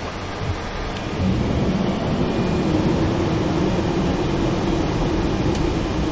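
Airliner cockpit noise on landing: a steady rumble of engines and airflow that grows louder about a second in, then holds with a steady drone over it.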